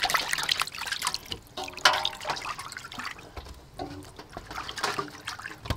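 Water splashing and dripping as hands rinse soft dough cakes in a metal basin of water and lift them out.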